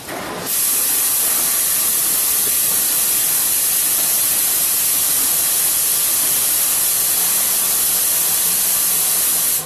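Compressed air from an external compressor hissing steadily into a Fairbanks Morse heavy-oil engine to force the piston down for starting. It comes on suddenly about half a second in and cuts off sharply near the end, with no firing from the engine.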